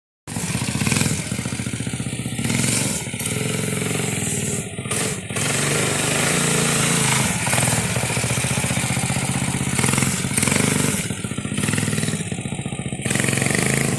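Predator 212 single-cylinder four-stroke small engine with a homemade exhaust, running loudly and revving up and down, cutting in suddenly.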